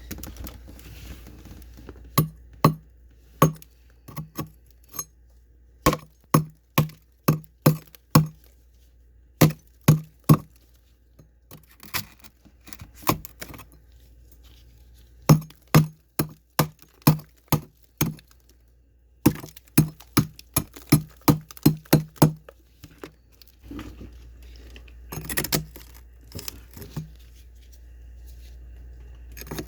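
Freezer frost being broken: runs of crisp, sharp knocks and cracks, about two a second, with pauses between runs, then a rougher stretch of scraping and crunching near the end.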